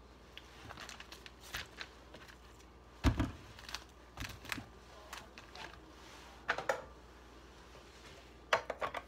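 Kitchen utensils and packages being handled on a counter: scattered clicks and knocks, the loudest a thump about three seconds in, with more clicks later on and near the end.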